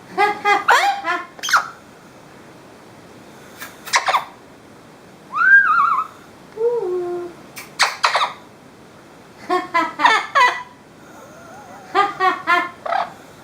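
Parrot calling in several short bouts of stuttering squawks and chatter, with a rising-then-falling whistle in the middle followed by a couple of falling whistled notes.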